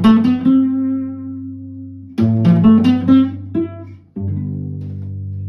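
Solo cello playing plucked pizzicato chords and notes: each group starts sharply and is left to ring and fade, with new groups struck about two seconds in and about four seconds in; the last, lower chord holds more steadily.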